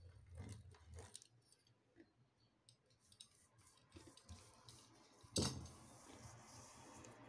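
Faint clicking of a metal fluted pastry wheel cutting the edge of a rolled dough sheet on a worktop. About five seconds in comes one sharp knock, as the cutter is laid down on the counter.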